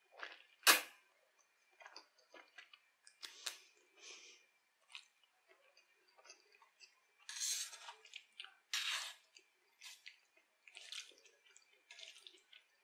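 Wet chewing and mouth sounds of someone eating creamy fettuccine carbonara, with a sharp click less than a second in and two louder wet smacks about halfway through.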